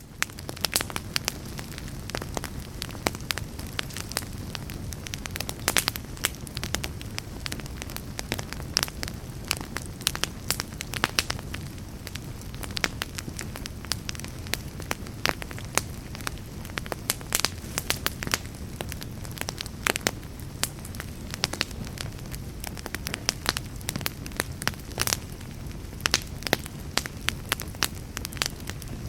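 Wood fire burning in a fireplace, crackling with many irregular sharp pops and snaps over a steady low rumble of the flames.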